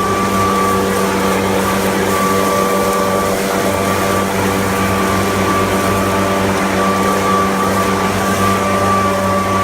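A machine's engine running at a steady speed, with a constant high whine over its low hum.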